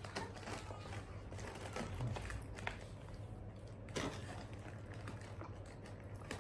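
Monkey chewing dried banana: scattered soft clicks and crunches over a low steady hum, with a sharper crunch about four seconds in.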